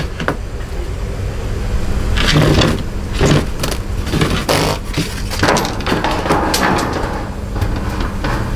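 White ceiling panel being slid and pushed out of its overhead framing, scraping and rubbing against the wood with several knocks, most of it in the middle of the stretch.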